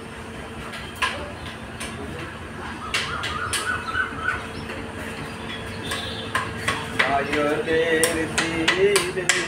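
Scattered sharp knocks and clicks, irregular and more frequent in the second half, over a steady low hum.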